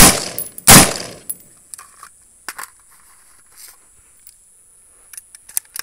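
Two 5.56 mm AR-15 rifle shots under a second apart, then a few faint metallic clicks of the rifle being handled. The bolt has not locked back on the empty PMAG.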